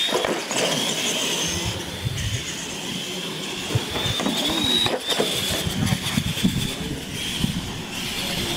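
R/C monster trucks racing flat out on concrete, with a high steady motor whine over the rush of their tyres.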